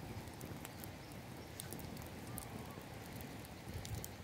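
Small open wood fire crackling, with irregular sharp snaps over a low steady rumble.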